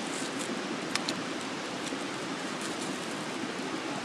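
Wood campfire crackling: a steady hiss with scattered sharp pops, one louder snap about a second in.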